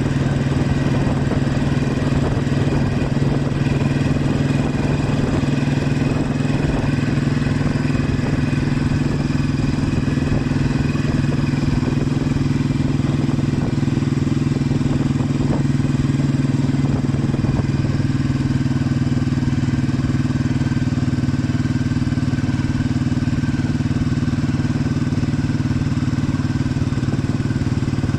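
Restored motorcycle's engine running at a steady speed, its pitch holding nearly constant and dipping slightly about two-thirds of the way in.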